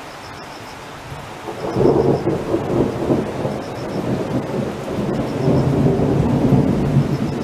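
Thunder: a steady hiss gives way, about two seconds in, to a loud rolling rumble that keeps going and swells again later.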